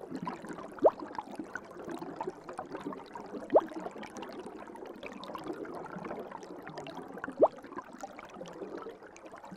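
Underwater ambience: a steady watery gurgle with three short, quickly rising bubble bloops spread across it.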